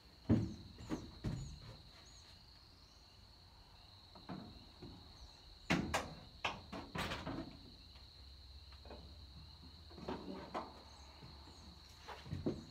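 Scattered knocks and clanks of hand greasing work on a Ford 2000 tractor, with several in quick succession around the middle and more near the end. Under them runs a steady high insect trill, and a few faint bird chirps come in the first few seconds.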